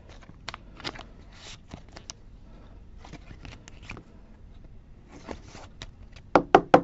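Handling of a trading card, a plastic card sleeve and a rigid clear plastic top loader: light rustling and small plastic clicks, with a quick run of three or four sharper clicks near the end.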